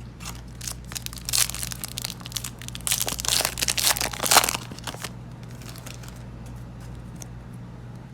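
Foil Yu-Gi-Oh booster pack wrapper crinkling and being torn open. The crackling is densest and loudest around three to four seconds in, then drops away after about five seconds.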